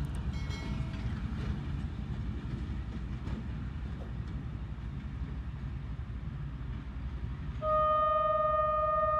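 Diesel locomotive rumbling low as it pulls away. Near the end its horn sounds, one loud, steady, multi-tone blast that carries on.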